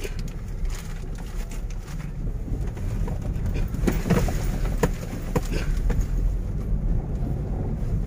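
Car cabin noise while driving slowly: a steady low rumble of engine and tyres, with a few light clicks about halfway through.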